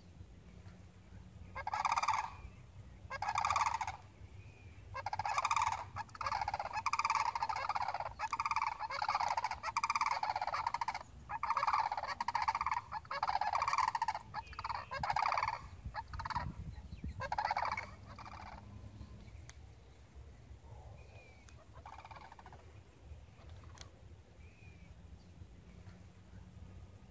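A flock of sandhill cranes calling: rolling, rattling bugle calls about a second long, many overlapping, thinning out to a few faint calls after about 18 seconds.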